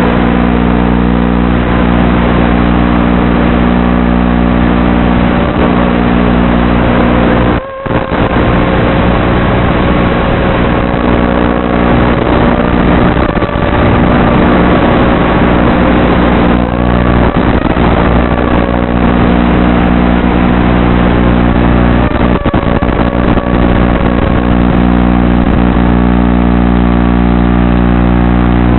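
Wizard X220 FPV racing quadcopter's electric motors and propellers whining, the pitch rising and falling with throttle, with a brief dropout about eight seconds in.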